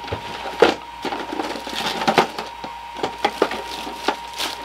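Irregular sharp clicks and light taps of small electronic parts being handled, over a faint steady high whine.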